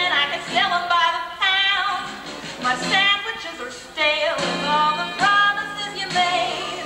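A woman's voice singing a slow song with instrumental backing, some notes held with a wavering pitch. It is the prerecorded vocal of an animatronic bear in a stage show.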